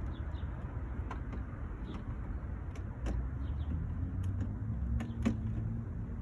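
A few sharp plastic clicks as the grill's retaining clips are pried and pushed loose with a flathead screwdriver and fingers, over a steady low rumble.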